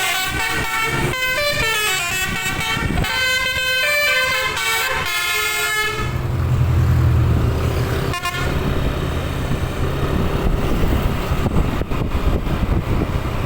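A bus's telolet musical air horn plays a quick melody of short, changing notes and cuts off about six seconds in. After that the bus engine runs with a loud low drone, with one short horn toot about eight seconds in.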